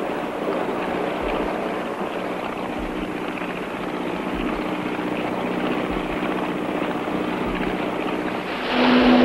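Motorboat engine running steadily, a low hum over a wash of engine and water noise, with a soft low pulse about once a second. Music swells in near the end.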